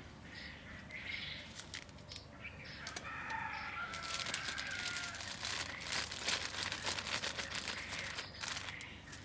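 Thin clear plastic bag crinkling and rustling as it is handled and pulled up around a citrus branch, a dense run of crackles from about four seconds in until near the end.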